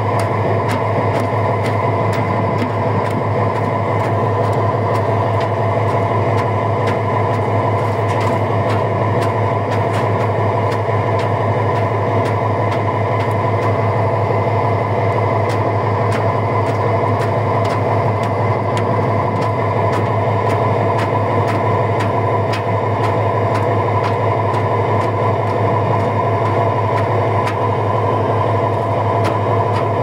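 Fishing boat's engine running steadily under way, a constant drone with a strong low hum, with water rushing along the hull.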